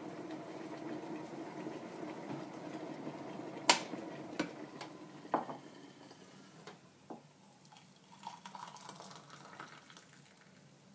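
A steady sound of hot water running that fades out about halfway through. Over it come several sharp clinks of crockery and cutlery, a few at first and then lighter ones.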